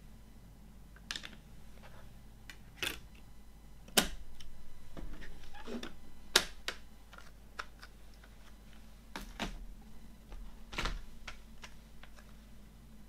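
Clear plastic CD jewel case being handled on a wooden table: a series of separate sharp plastic clicks and taps, the loudest about four seconds in and again just past six seconds.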